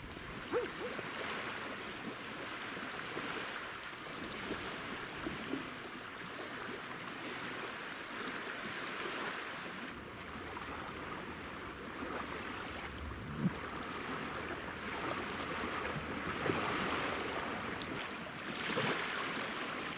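Small waves lapping steadily on a lake shore, an even wash of water.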